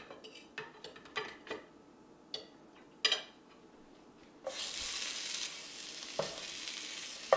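A fork clinks and scrapes on a plate several times. About four and a half seconds in, a sudden steady sizzle starts as the still-pink ahi tuna steak goes back into the hot frying pan to cook further.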